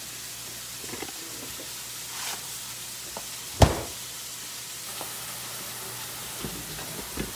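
Chicken frying in a pan, a steady sizzle, with one sharp knock about three and a half seconds in and a few faint clicks.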